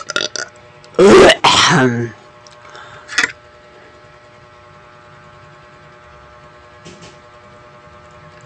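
A person's loud sneeze-like vocal outburst right at the microphone, loudest about a second in, with a shorter burst near 3 s. Then only faint room tone with a steady low hum.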